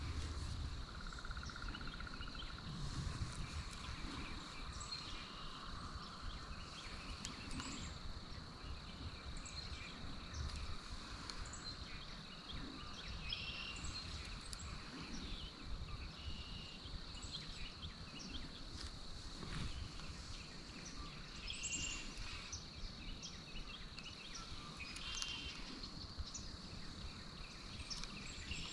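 Birds chirping here and there over a steady high-pitched drone, with a faint low rumble underneath.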